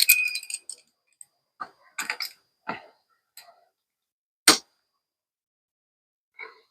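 Scattered clicks and taps from plumbing parts and tools being handled while fitting a frost-free outdoor faucet, with one sharp, louder click about four and a half seconds in.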